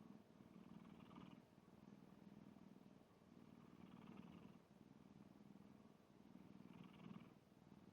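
A black cat snoring faintly while asleep: a low, steady rumble that rises and falls with its slow breathing, with a soft hiss about every three seconds.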